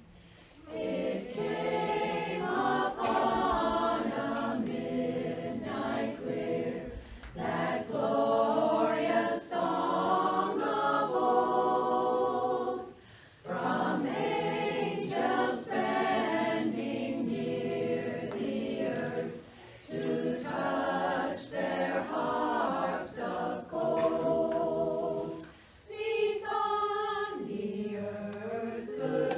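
A barbershop chorus singing a cappella in close harmony. The phrases are broken by short pauses for breath.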